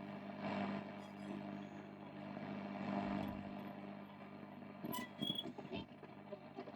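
Shortwave static and hiss from a 1951 Radionette Menuett valve radio's loudspeaker between stations, over a steady low hum. About five seconds in there are several clicks and brief whistles as the band is tuned.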